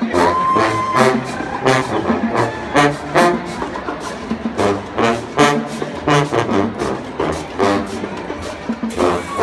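Marching band playing: brass instruments carry a sustained tune over a steady beat of drums.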